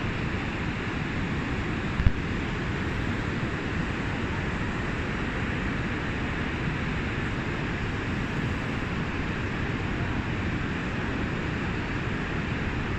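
Steady rush of a waterfall and white-water river, even throughout, with one short sharp knock about two seconds in.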